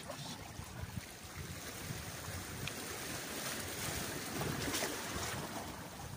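Sea waves washing against the rocks of a breakwater, with wind rumbling on the microphone; the wash swells louder a little past the middle, then eases.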